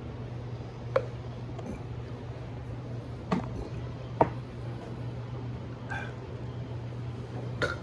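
Steady low hum of room noise with four short, sharp clicks scattered through it.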